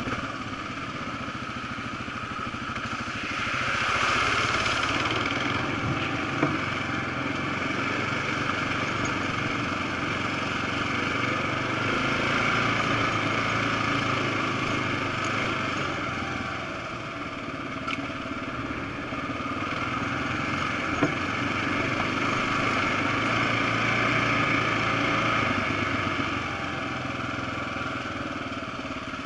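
Single-cylinder dual-sport motorcycle engine running while riding a dirt trail, its note swelling and easing with the throttle several times. Two sharp knocks from bumps are heard along the way.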